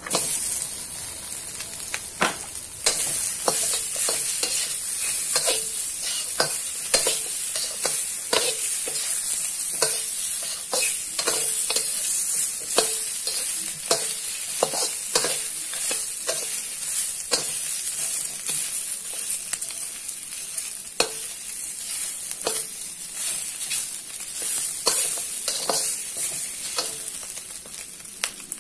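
Leftover roasted duck and chicken pieces sizzling as they drop into a hot wok, then stir-fried with a metal spatula that knocks and scrapes against the wok, about once a second, over the steady sizzle.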